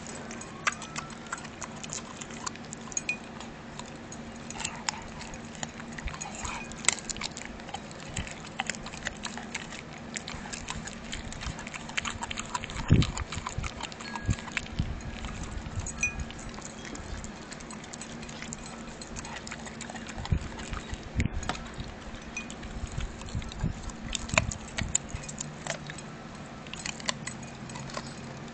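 A 14-week-old blue bully puppy chewing and gnawing on a raw chicken leg: irregular wet clicks and crunches of its teeth on the meat and bone, with a louder thump about halfway through. Its metal collar tag clinks now and then.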